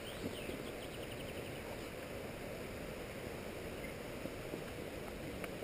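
A steady low rumble of outdoor noise on a worn camera's microphone, with a bird trilling faintly in quick high notes about half a second in.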